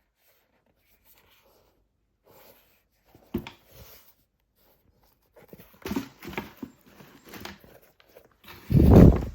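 Football boot packaging being handled: scattered rustles and taps of paper and cardboard, a sharp knock about a third of the way in, and a louder, heavier rustle near the end.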